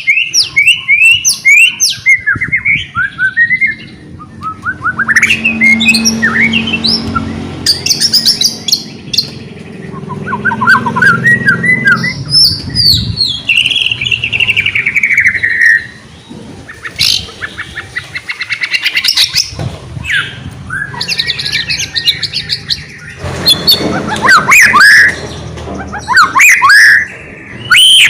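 White-rumped shama (murai batu) in full song: a loud, varied stream of rich whistles, rapid trills and long sliding notes, with only brief pauses.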